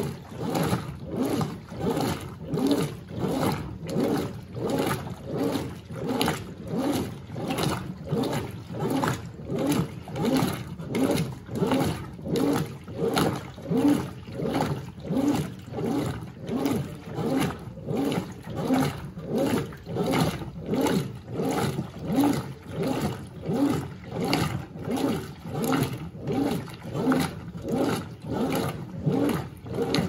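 Brastemp BWH15 top-load washing machine agitating a load of jeans and sweatshirts in soapy water: the agitator swishes the clothes back and forth in a steady rhythm, a little faster than once a second, with the motor running and water sloshing on each stroke.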